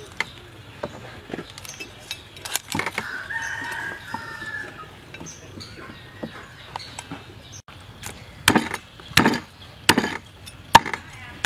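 A fowl calls once, a drawn-out call about three seconds in, over a quiet background. Near the end comes a run of loud, sharp sounds, about one every half second.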